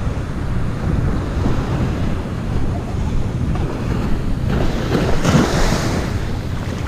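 Ocean surf breaking on a beach under wind buffeting the microphone. About five seconds in, a wave washes in and the hiss grows louder.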